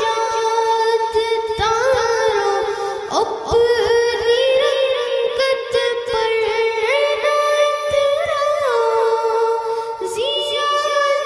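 A boy singing an Urdu naat unaccompanied into a microphone, holding long notes and sliding between them.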